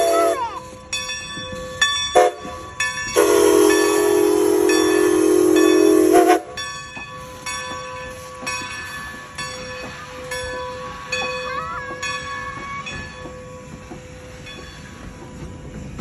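Steam locomotive No. 90's chime whistle sounding close by as it crosses the road: a blast cut off just after the start, a short toot about two seconds in, then a long blast from about three to six seconds. After that, the crossing signal's bell rings steadily over the rumble of the engine and coaches rolling past, fading toward the end.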